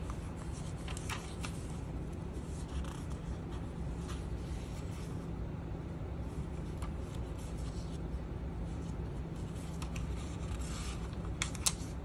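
Paper pages of a handmade junk journal being turned and smoothed by hand: scattered soft rustles and light ticks, with one sharp click near the end, over a steady low hum.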